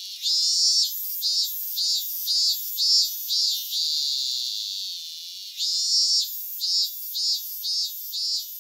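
High-pitched insect song: a long steady buzz followed by a run of about six short pulses, heard twice.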